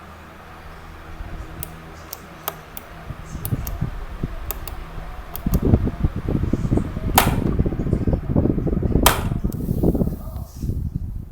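Electric fan (Cuchen WF-MF1499SB) running with a low motor hum and a string of sharp clicks. From about halfway, its airflow buffets the microphone in loud, gusty rumbles, broken by two louder clicks, until it falls away just before the end.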